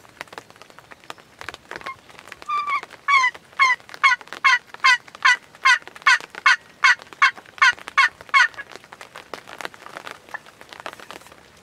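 Turkey yelping: a steady run of about fifteen evenly spaced yelps, roughly two and a half a second, starting about two and a half seconds in and stopping about six seconds later.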